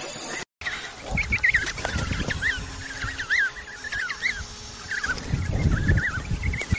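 A group of birds giving many short, quick chirping calls, overlapping, with low rumbling noise in two stretches. The calls start after a brief dropout about half a second in.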